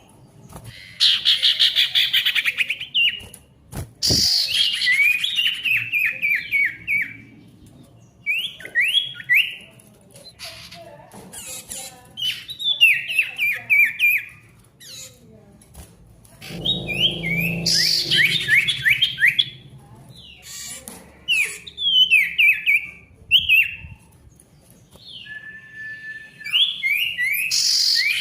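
A sirtu songbird singing loudly and busily: repeated bursts of quick, sharply falling chirps, each phrase a rapid series of notes lasting a second or two, with short pauses in between.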